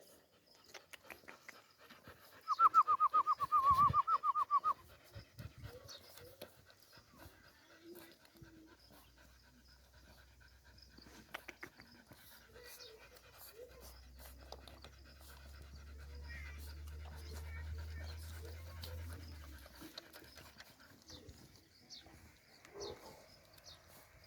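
A dog panting, with a loud, rapid run of high chirps lasting about two seconds near the start. A low hum swells and fades in the second half.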